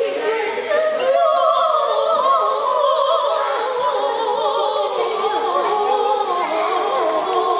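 Two women and a boy singing a Christmas carol together, with held notes that waver in pitch.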